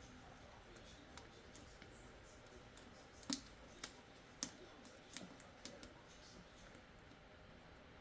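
Scattered small clicks and taps of hand work on an open laptop, parts and tools being handled, over near silence. About five sharp clicks come between three and six seconds in, the first the loudest.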